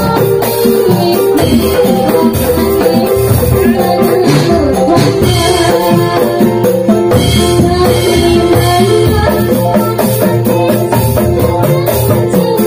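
Accompaniment music for a Javanese Dolalak dance: drums and rattling, jingling hand percussion over a sustained melody, with singing.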